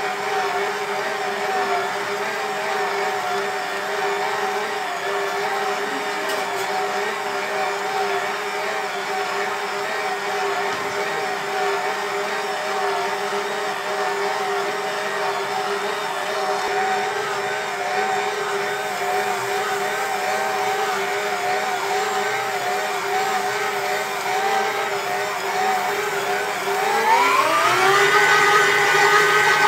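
Karaca Mastermaid Chef Pro 1750 W stand mixer's motor running steadily with a whine while its dough hook kneads mantı dough. Near the end the whine glides up in pitch as the mixer speeds up, then holds higher and a little louder.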